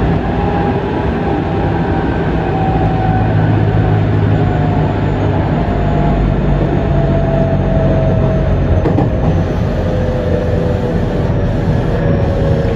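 Mitsubishi power-transistor VVVF inverter and traction motors of a JR West 207 series electric train whining under running noise, the whine falling slowly in pitch as the train slows.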